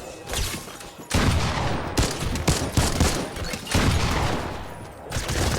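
Bursts of rapid gunfire: several volleys of shots, each trailing off in an echo, starting about a second in and recurring through to the end.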